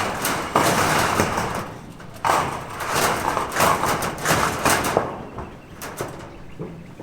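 Construction-site work noise: rough scraping in several bursts of a second or so, mixed with sharp knocks and clicks.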